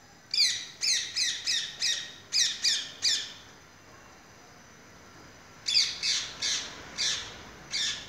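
Parrot squawking: a quick run of about eight harsh calls, each falling in pitch, then a pause and about five more near the end.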